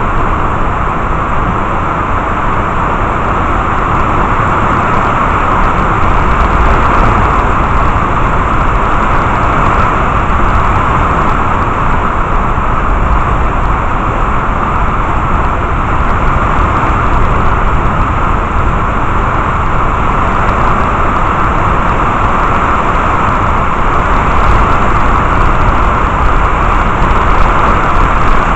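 Steady, loud rush of heavy thunderstorm rain, with wind rumbling on the microphone.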